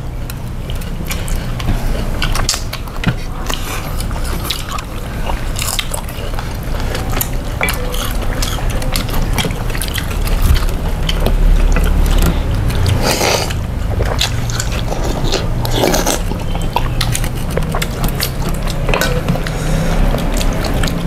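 People eating a meal: chewing, with scattered light clicks of plates and utensils, over a steady low rumble.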